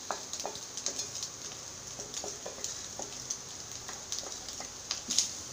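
Spatula scraping and tapping against a metal pan as crumbled fried egg is pushed out of it into another pan, in many small irregular clicks with one sharper knock near the end, over a faint steady sizzle.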